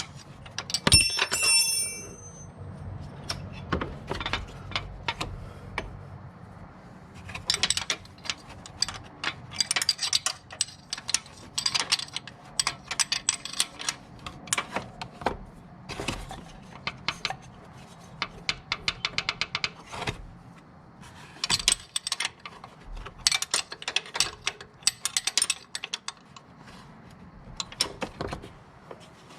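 Hand tools at work on a car engine: a ratchet wrench clicking in quick runs, with metal tools knocking and clinking, and one sharp ringing metallic clink about a second in.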